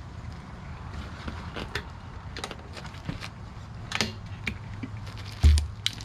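Scattered small metallic clicks and taps of hand tools and wheel parts being handled, with one dull thump about five and a half seconds in, over a steady low hum.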